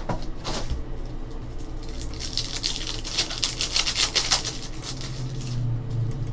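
Foil wrapper of a Panini Select basketball card pack being torn open and crinkled by hand: a dense crackling rustle from about two seconds in for a couple of seconds, over a low steady hum.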